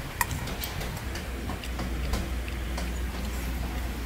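Metal spoon clicking and scraping against a stainless steel bowl as rice is scooped up, a scatter of light, irregular ticks.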